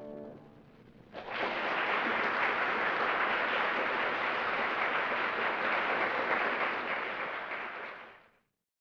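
The last chord of the keyboard music dies away. About a second later, an audience breaks into steady applause, which fades out about eight seconds in.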